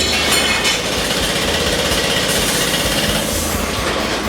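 The small engine of a home-built motorized ride-on shop stool running steadily, with a loud rattle.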